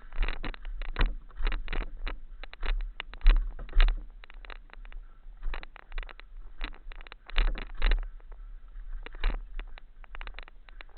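Mountain bike clattering and rattling as it rides down a rough trail, with irregular knocks and jolts several times a second, louder jolts about three to four seconds in and again near eight seconds, over a steady low rumble.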